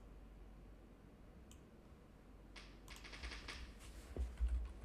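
Faint clicks of a computer mouse, then a quick run of keyboard key taps about two and a half seconds in, and a low knock near the end.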